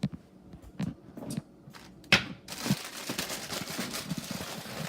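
A few kitchen knocks and clicks, the loudest about two seconds in. Then, from about halfway, a plastic bag crinkling and rustling as it is handled.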